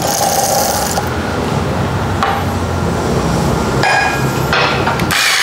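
Electric coffee grinder grinding a 20 g dose of coffee beans: a dense, steady crunching that stops abruptly near the end.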